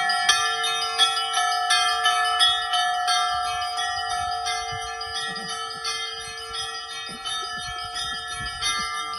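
Russian Orthodox church bells ringing a festive peal: small bells struck in quick succession over the long, lingering ring of larger bells.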